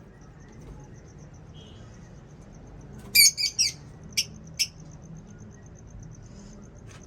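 Lovebirds chirping: a quick cluster of sharp, high chirps about three seconds in, then two single chirps about a second later. A faint, rapid, high-pitched ticking runs underneath throughout.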